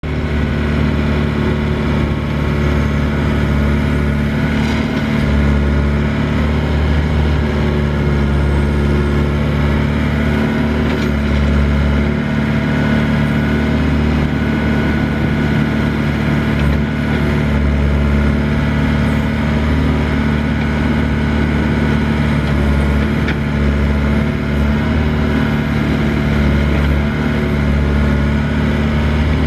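Doosan DX55 mini excavator's diesel engine running steadily as the arm digs gravel. Its low note swells and eases every few seconds as the hydraulics take up load.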